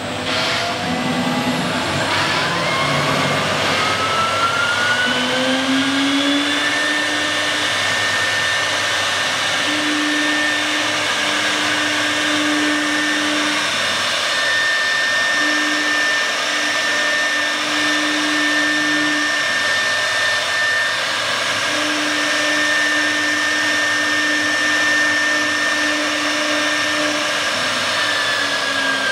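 CIMTECH 1325 CNC router's spindle motor winding up with a rising whine over the first several seconds, then holding a steady high whine as the bit cuts shapes into a board. A lower hum switches on and off over and over as the axes move. The whine begins to fall right at the end.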